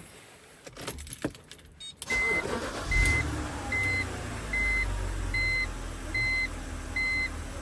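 Clicks and a key jangle, then a 2006 BMW X3 2.5si's petrol straight-six cranks and starts about two seconds in. It catches with a brief surge and settles into a smooth idle, a sign that the new ignition coil on cylinder 6 has cured the misfire. A high repeating beep sounds a little more than once a second alongside.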